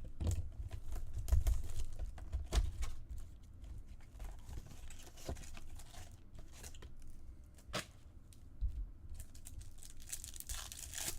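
Trading card pack wrappers being torn open and cards handled: crinkling and tearing of the wrapper with small clicks of card edges, and a louder stretch of tearing near the end.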